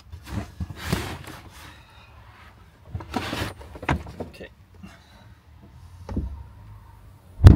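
Scattered short knocks, clicks and brief rustles, a second or more apart, ending in a sharp loud thump near the end.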